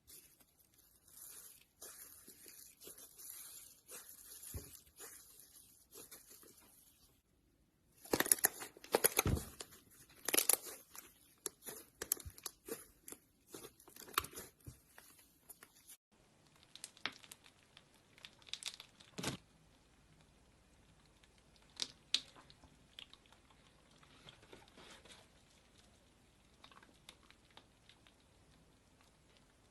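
Slime being stretched, squeezed and pulled apart by hand, giving quiet crackling, tearing and clicking sounds. They are densest and loudest in the middle and thin out to sparse clicks in the second half.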